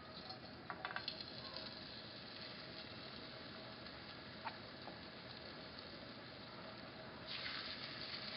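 Breaded chicken schnitzels being laid into a non-stick frying pan of hot sunflower oil on medium-low heat, frying with a soft sizzle over a steady background hiss. A few light clicks about a second in as the first piece goes in, and a louder hiss near the end as the second one is laid in with a fork.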